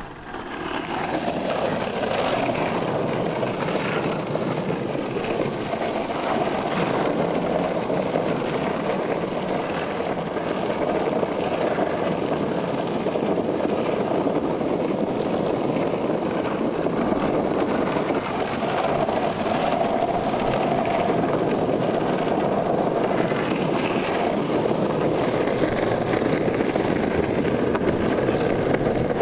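Longboard wheels rolling over rough asphalt: a steady rolling rumble and hiss that comes up within the first second and holds even throughout.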